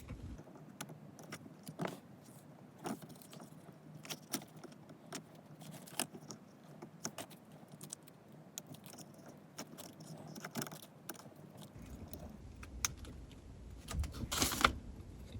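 Scattered small clicks, ticks and light scraping of plastic parts as a pry tool works the wiring connector off the back of a BMW i8 gear selector's circuit board, with a louder brief scrape near the end.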